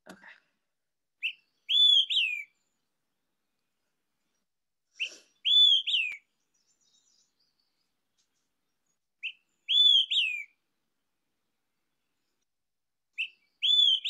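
Recorded bird song: a high whistled phrase of three notes, a short note then two slurred whistles, the last falling in pitch, repeated four times about four seconds apart.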